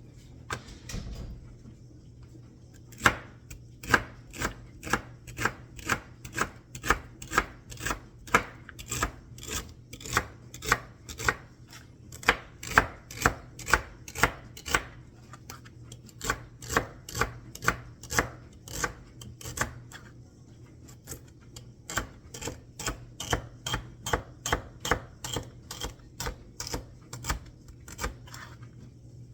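Knife chopping celery, a steady run of sharp cuts about two a second that starts about three seconds in, with a short pause about twenty seconds in.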